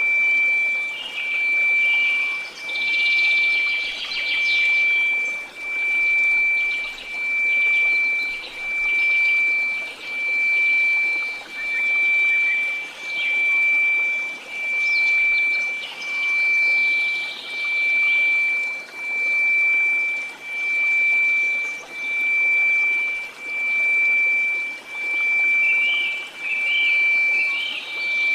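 Synthetic 2334 Hz pure sine tone over a bed of white noise. The level swells and fades smoothly about once every one and a half seconds.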